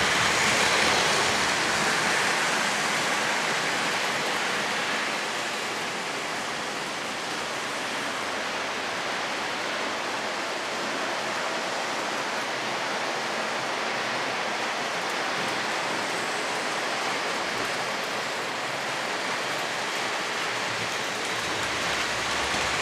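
O-gauge model coal train rolling on three-rail track: a steady whirring rush of metal wheels on the rails. It is loudest as the hoppers pass close at first, eases as the train runs away around the layout, and swells again as the GP38 locomotive comes back around near the end.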